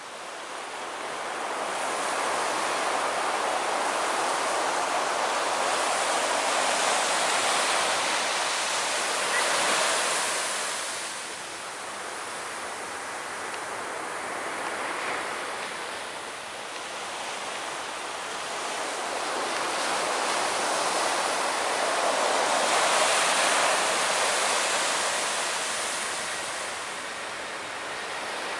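Surf breaking and washing on the beach with wind rushing over the microphone, a steady hiss that swells and eases twice in slow surges.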